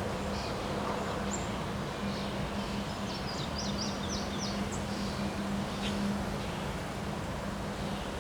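Wind rushing over the microphone with a steady low hum underneath, and a short run of bird chirps about three to four and a half seconds in.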